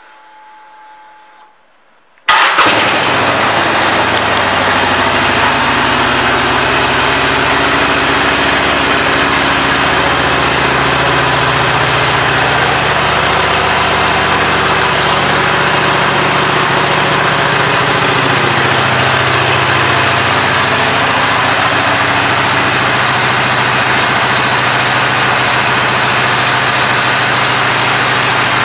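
Harley-Davidson Iron 883's air-cooled 883 cc V-twin starting with a sudden loud catch about two seconds in, then idling steadily.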